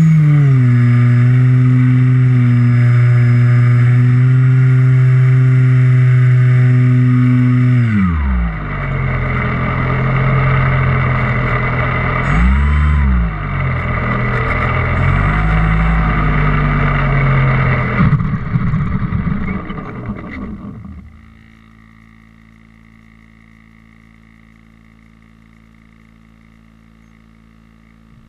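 GWS Slow Stick model plane's electric motor and propeller running at a steady, even drone, with air rushing over the onboard camera's microphone. After about eight seconds the throttle is cut and the plane glides down with wind noise and two brief throttle blips. Past the two-thirds mark it has landed and only a faint steady hum remains.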